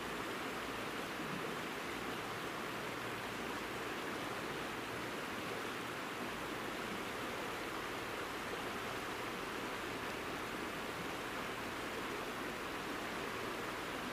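Steady rushing of a mountain stream, an even hiss that does not change.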